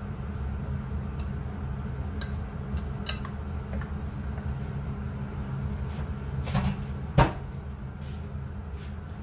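Metal spoon clinking and scraping against a glass bowl as raw chicken pieces are moved into a plastic bowl, with scattered light clicks and one loud sharp knock about seven seconds in, over a steady low hum.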